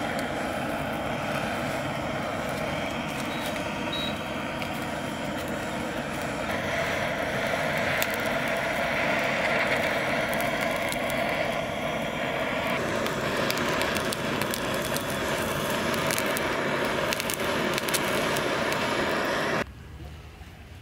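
Handheld butane canister blowtorch burning with a steady hissing rush as its flame singes the fine down off a plucked duck's skin. It stops abruptly near the end.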